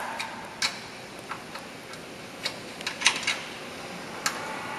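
A few short, sharp clicks at irregular intervals, about six in all, from a tool working the brake (closing-speed) adjustment on a Waterson glass-door hinge.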